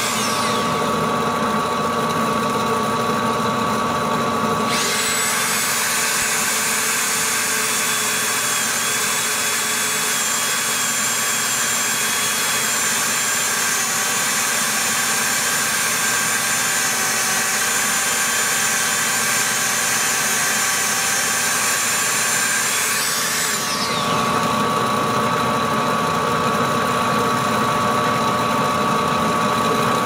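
Metal lathe running steadily. From about five seconds in, a handheld rotary tool with a cutoff wheel runs at high speed with a high whine and a grinding hiss against the spinning steel extruder drive gear, then spins down about 23 seconds in.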